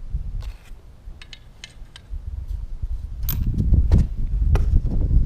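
Small metal clicks and clinks as an alternator mounting bracket and its bolts are handled and fitted, over a low rumble that grows louder about two seconds in.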